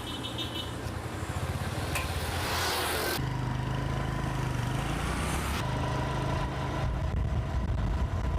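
Motorcycle engine running with a steady low hum under road and wind rush. The sound changes abruptly about three seconds in and twice more later on.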